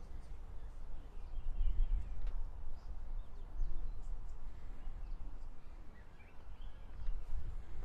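Outdoor background noise: a low, fluctuating rumble with faint bird chirps now and then.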